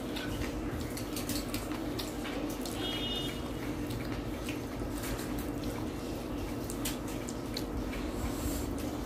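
Eating sounds: scattered small clicks and smacks of chewing and fingers working food, over a steady low hum. A brief high chirp sounds about three seconds in.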